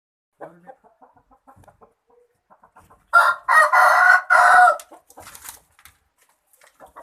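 A rooster crowing once: a loud, harsh call of about a second and a half in three parts, starting about three seconds in, after a few faint clucks.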